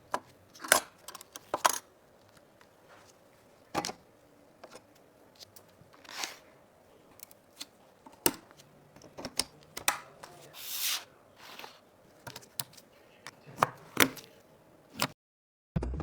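PC parts and their packaging being handled: scattered sharp clicks and taps with a few short rustles, the longest about eleven seconds in.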